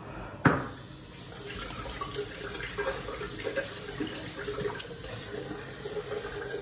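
A sharp knock about half a second in, then a bathroom sink tap running steadily, with irregular splashing.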